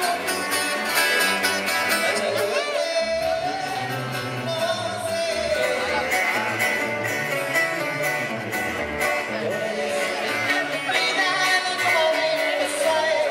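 Mexican banda music playing: a brass melody over a stepping tuba bass line.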